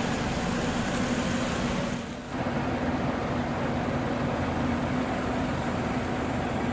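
A steady hum of idling vehicle engines, with a constant low drone under it. The sound dips briefly about two seconds in.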